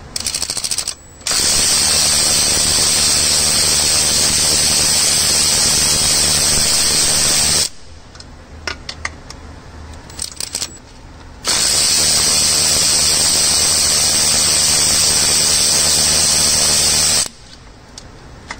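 Snap-on cordless power ratchet running, spinning out the intake manifold bolts: a short burst, then two long runs of about six seconds each with a steady hum, and a few light clicks in the gap between them.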